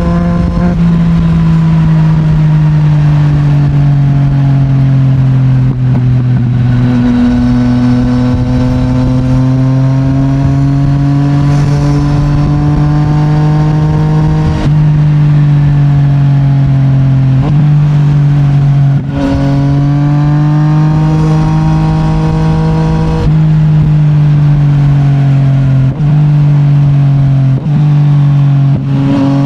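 Yamaha MT-09's CP3 three-cylinder engine through an Akrapovic full titanium exhaust, pulling steadily on the move, with its pitch slowly rising and falling. About eight brief breaks with sudden pitch steps come through the ride: gear changes.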